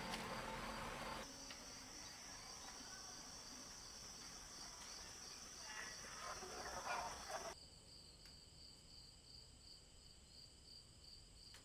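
Crickets chirping in a steady, high, evenly pulsing trill. A broader sound cuts off about a second in, and there are a few faint clinks around six to seven seconds in.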